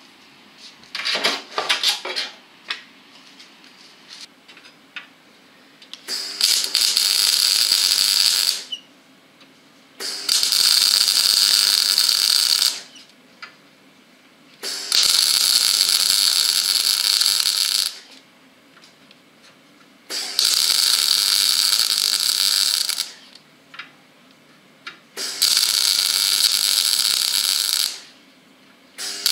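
MIG welder welding a steel chassis joint in short runs: five bursts of steady crackling hiss, each about two to three seconds long, separated by brief pauses. A few sharp clicks and knocks come in the first few seconds before the first run.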